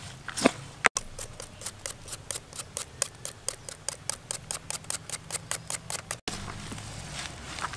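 A wooden spoon tossing a bean-sprout and herb salad in a plastic bowl, crunching and rustling. From about a second in until near the end this breaks off for rapid, even clicking, about six clicks a second, which stops abruptly.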